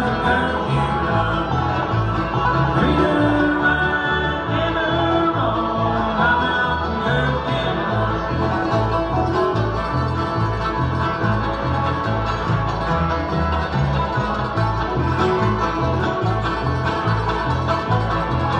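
Bluegrass band playing: banjo and guitar over a steady, even bass beat.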